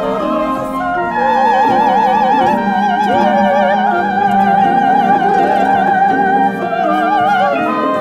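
Two female opera singers singing long, sustained high notes with wide vibrato over a chamber ensemble that includes harp. A long held note gives way to a new phrase about six and a half seconds in.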